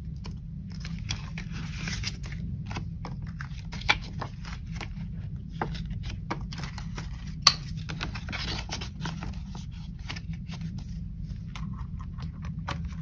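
Paper bills and clear plastic cash envelopes rustling and crinkling as they are handled, in many short irregular crackles over a steady low hum, with two sharper clicks, one about four seconds in and a louder one past seven seconds.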